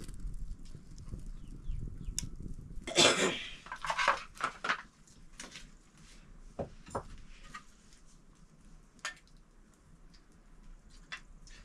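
Metal utensil clattering and clinking against a wok of boiling pork, loudest in a burst about three seconds in, then single scattered clinks. A low rumble runs under the first few seconds.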